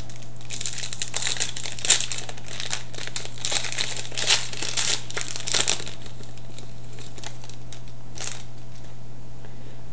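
Hockey card pack wrapper being torn open and crinkled by hand, a run of crackling bursts for the first six seconds and one more about eight seconds in.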